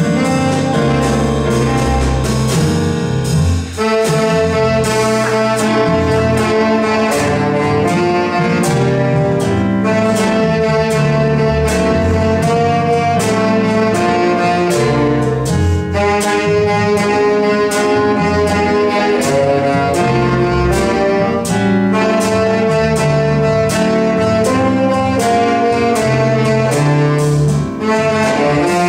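Small jazz combo playing: saxophone melody over electric keyboard, a bass line and drum kit with regular cymbal strokes.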